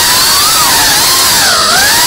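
3.5-inch cinewhoop FPV drone's brushless motors and propellers whining over a steady rush of noise, the pitch wavering up and down with the throttle.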